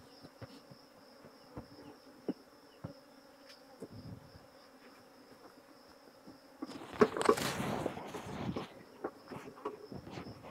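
Agitated honeybees at a disturbed hive: a faint steady buzzing hiss, with a thin high tone held throughout and small scattered clicks. About seven seconds in, a loud rustle lasts a second or two.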